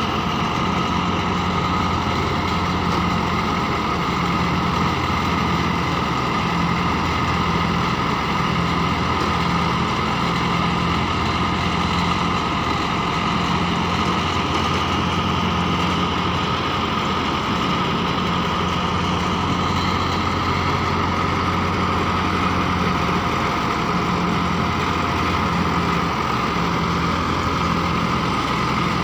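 Massey Ferguson 385 tractor's diesel engine running steadily under load, driving a PTO-powered thresher through its shaft while pearl millet heads are fed in. The thresher adds a steady whine over the engine drone.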